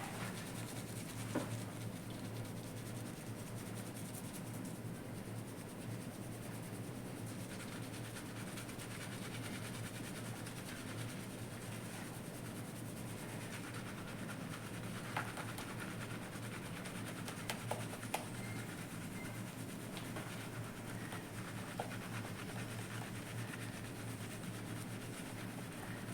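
Fingers massaging a shampoo lather into the hair and scalp: steady soft rubbing and scrubbing, with a few brief sharp clicks.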